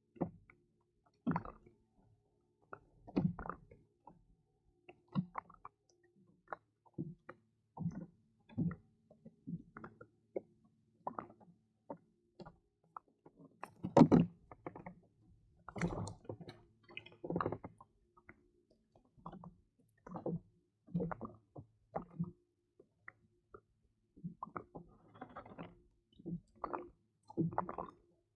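Irregular handling noises, short knocks, clicks and squishes about once or twice a second, the loudest about halfway through: hands working fishing gear and bait against a kayak.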